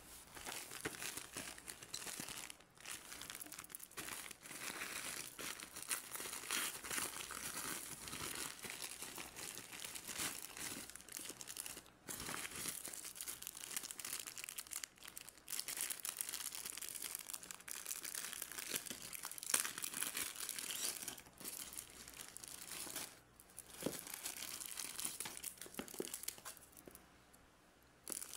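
Clear plastic packaging bags crinkling and rustling as they are handled and pulled open, a dense run of crackles broken by a few short pauses.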